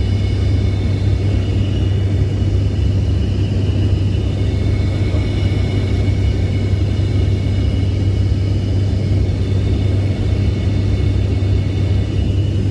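Cabin noise of an ATR 72-600 twin-turboprop airliner in flight: the steady low drone of its propellers and engines, with a faint steady high whine above it.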